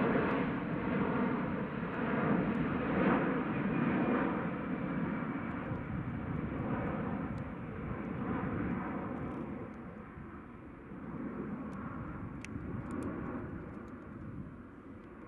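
Airbus Beluga XL's two Rolls-Royce Trent 700 turbofans heard in flight: a steady rushing jet noise, loudest at first and fading as the aircraft flies away.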